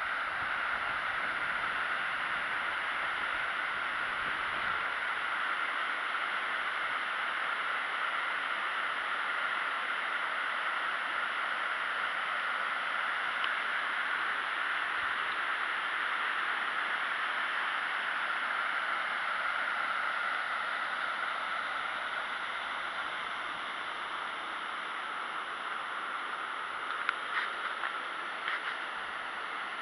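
Waterfall rushing steadily, with a few small clicks near the end.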